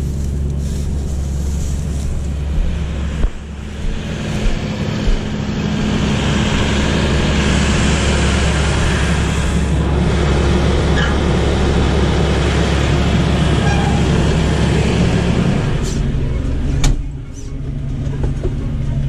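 Claas Dominator Mega 208 combine harvester's diesel engine running steadily, with a rushing noise that swells through the middle. A single knock comes near the end, after which the engine carries on more evenly.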